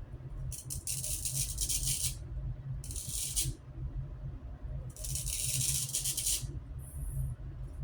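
Boar bristle shaving brush swished around a lathering bowl, working up soap: a scratchy, hissing swish in four spells of one to one and a half seconds each, with a low steady hum underneath.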